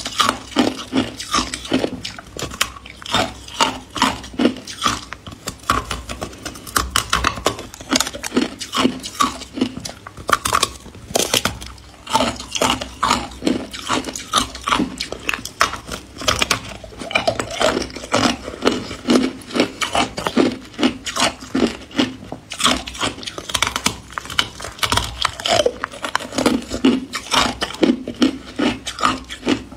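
A person biting and chewing hard ice: a dense run of crisp crunches and cracks, several a second.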